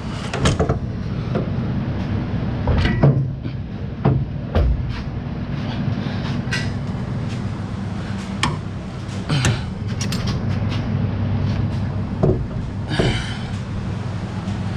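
Scattered metal knocks and clunks as a dog-box transmission on a jack is worked up into the bellhousing, with a short scrape about thirteen seconds in, over a steady low hum.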